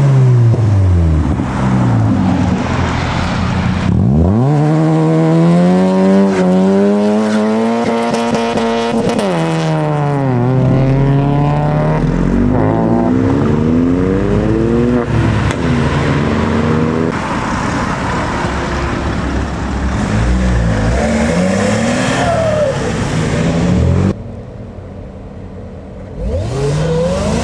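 Supercar and modified car engines accelerating hard and revving, one car after another, each note climbing with the revs and dropping away as the car passes. The sound is quieter for a couple of seconds near the end.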